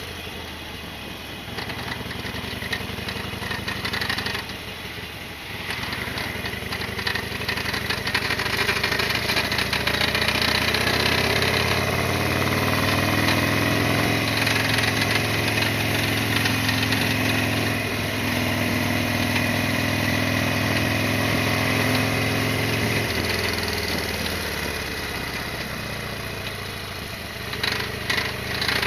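Harley-Davidson Sportster XL1200R's air-cooled V-twin running while being ridden: its pitch rises steadily about a quarter of the way in, holds at cruising speed, drops as it slows near the end, then picks up again.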